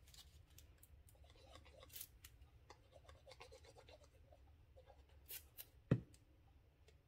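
Faint rustling and rubbing of cardstock being handled and pressed into place, with scattered light clicks and one sharper tap about six seconds in.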